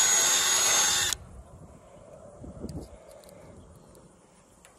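Cordless drill with a 3/8-inch bit running at speed with a steady whine as it bores out a bolt hole in a wooden board. It stops abruptly about a second in, and faint clicks and handling noise follow.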